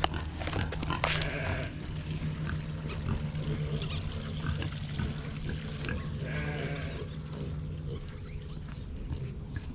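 Sheep bleating, twice, over a steady low hum.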